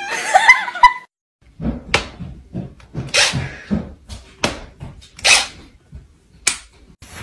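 A kitten mews briefly in the first second. Then a serval hisses in about seven short, harsh bursts.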